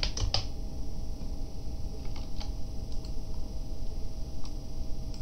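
A quick run of computer keyboard keystrokes right at the start, then a few scattered faint clicks over a steady low background hum.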